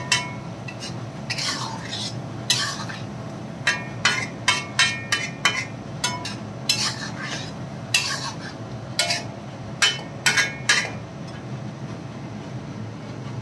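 Flat metal spatula scraping and clinking against an iron karahi in irregular strokes as chicken is stirred and fried in yogurt. The scraping stops a couple of seconds before the end.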